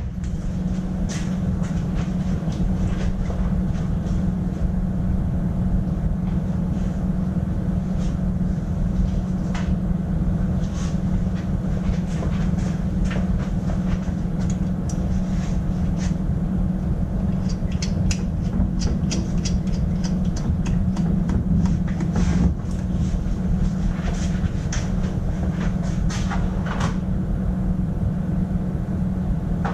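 Steady mechanical drone of a machine running in the workshop, with scattered light metallic clicks and taps of tools being handled, a cluster of them a little past the middle.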